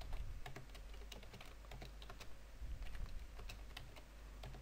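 Computer keyboard typing: a steady run of quick, irregular keystroke clicks, faint.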